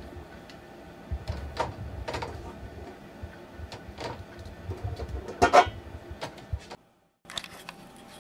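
Light clicks and knocks of eggs being handled, moved from a bowl into a wire egg basket, with a louder knock about five and a half seconds in. The sound cuts out briefly near the end.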